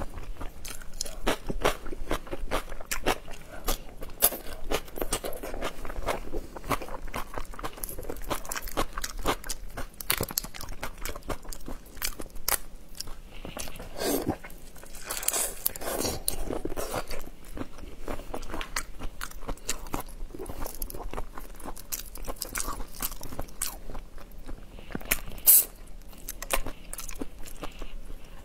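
Close-miked mouth sounds of eating raw marinated shrimp: continual biting, chewing and crunching.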